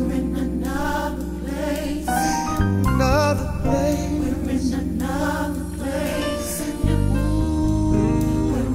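Gospel worship music: a choir singing over sustained bass notes that change pitch every second or so.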